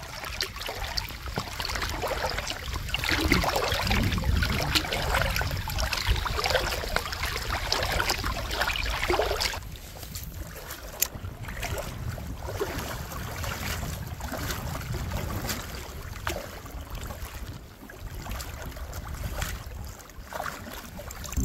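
Water sloshing and swirling around a float tube as it is kicked along with swim fins, with some wind on the microphone. Louder for the first nine seconds or so, then it drops to a quieter wash.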